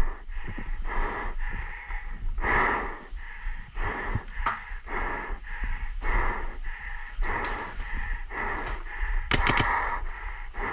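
A person breathing hard and fast close to the microphone, about two breaths a second. A quick run of three or four sharp cracks comes near the end.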